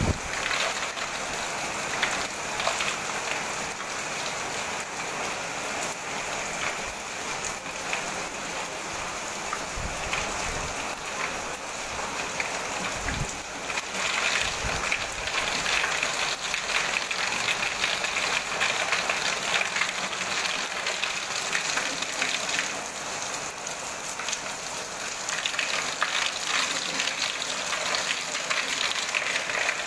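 Hailstorm: rain and hailstones pelting down in a dense, steady patter of many small hits, with a few dull low thumps around ten and thirteen seconds in.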